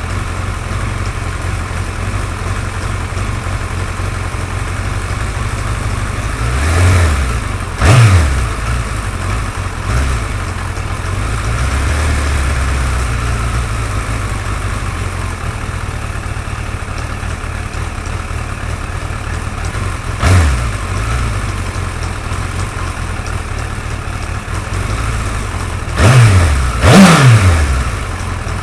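Suzuki GSX-R1100 inline-four engine idling steadily, revved briefly about six times, twice in quick pairs. The owner is chasing a ticking from this engine.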